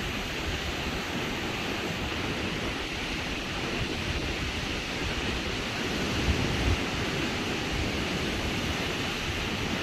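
Sea waves washing onto a beach in a steady rush, with wind buffeting the microphone and one stronger gust about six seconds in.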